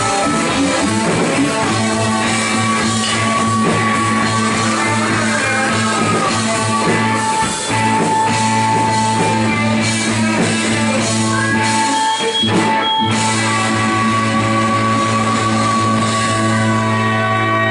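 Live rock band playing an instrumental passage: guitar and drum kit, with long chords held and ringing. The low notes drop out briefly about twelve seconds in.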